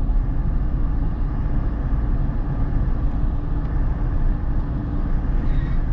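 Steady engine and road noise of a moving car, heard inside the cabin.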